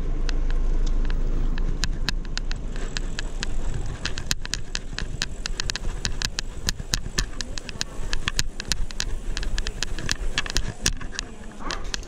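A bicycle being ridden, with a steady low wind rumble on the microphone and a continuous run of sharp clicks and rattles, several a second, from the bike as it rolls over the pavement.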